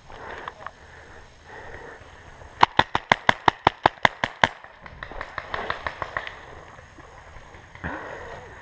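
Paintball marker, a Tippmann A-5, firing a rapid string of about a dozen shots, roughly six a second, for about two seconds. Rustling movement through brush before and after.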